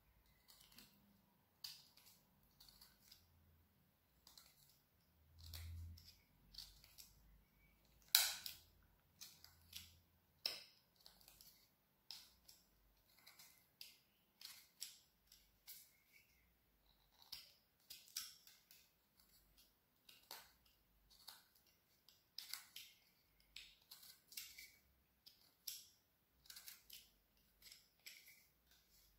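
Small hand carving tool slicing chips out of a branch: a run of short, crisp cuts at an uneven pace of about one or two a second, the loudest about eight seconds in.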